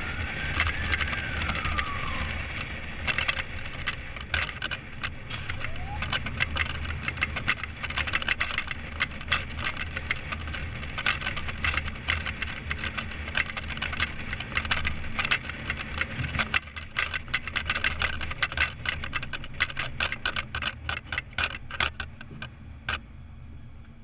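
Inside a moving fire engine's cab: a steady low engine drone with constant rattling and clicking of the cab. A siren wail rises and falls away within the first two seconds, and a short siren yelp sounds about six seconds in.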